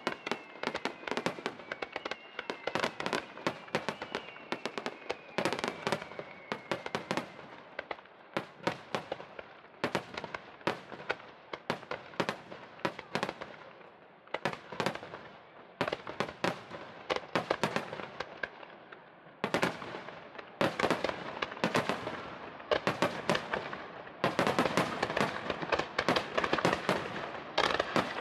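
Fireworks display: a rapid barrage of aerial shells bursting, many overlapping sharp reports and crackling, growing denser and louder in the last few seconds. A faint high tone slides slowly downward during the first several seconds.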